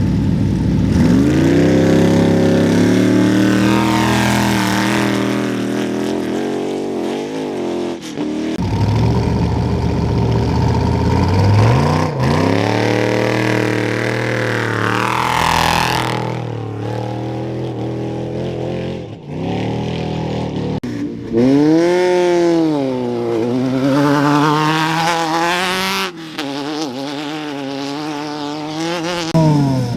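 Off-road race vehicles launching from a start line in turn, engines revving hard and climbing in pitch as each accelerates away, some dropping in pitch as they pass. The sound breaks off abruptly several times between launches. Near the end one engine's revs swing up and down repeatedly.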